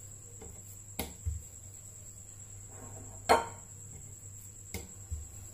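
Wooden rolling pin knocking on a wooden rolling board as puri dough is rolled out: a few light knocks, with one louder clack about three seconds in. A steady high-pitched tone runs throughout.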